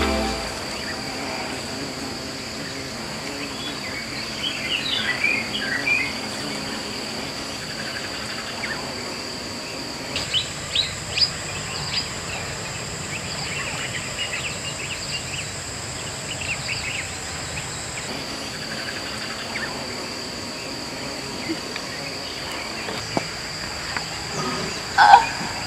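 Outdoor night-into-dawn ambience: a steady high insect trill, with a second, higher trill joining for several seconds in the middle. Short bird chirps come and go, with a louder call near the end.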